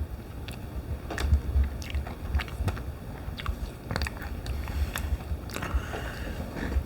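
Person biting into and chewing a small lunch-kit cheese pizza, with irregular soft crunches and mouth clicks.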